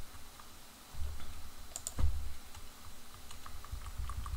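Computer keyboard being typed on: scattered light key clicks with a few low bumps, the loudest about two seconds in, and a quicker run of taps near the end.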